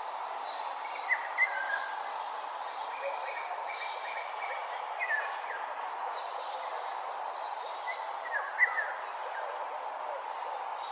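Birds chirping and singing in the morning, with a few close, sharp chirps about a second in and again about eight seconds in. Fainter, higher calls from more distant birds sit over a steady background hiss.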